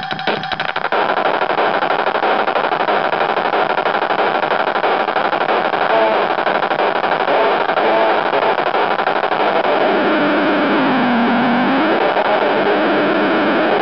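Circuit-bent Casio SA-5 mini keyboard putting out a harsh, noisy glitching drone, with wavering pitch sweeps dipping and rising as the added knobs are worked. A rhythmic beat pattern cuts off just under a second in.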